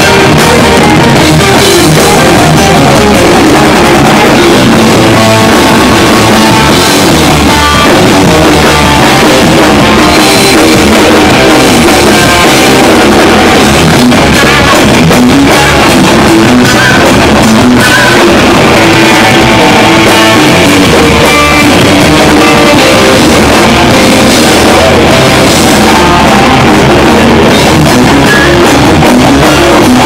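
Heavy metal band playing live: distorted electric guitars, bass guitar and a drum kit, very loud and dense throughout, recorded on a camcorder right at the stage.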